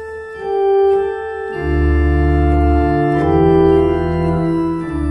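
Organ playing the instrumental introduction of a hymn: held chords with a melody on top, changing every second or so, and a deep bass line coming in about a second and a half in.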